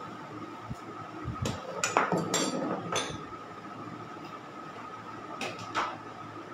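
Kitchen utensils and containers knocking and clinking as they are handled: a cluster of sharp knocks about two seconds in and two more near the end, over a steady hum.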